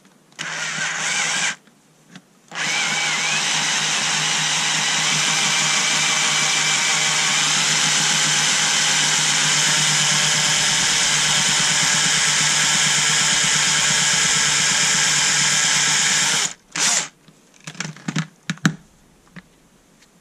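Cordless drill drilling into a very hard screw set in the plastic handle of a cordless screwdriver, to drill off its head because it is too tight to unscrew. A short burst comes first, then the drill runs steadily for about fourteen seconds and stops, followed by a few clicks and knocks.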